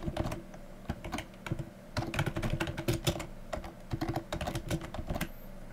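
Typing on a computer keyboard: quick, irregular key clicks in short runs, stopping a little before the end.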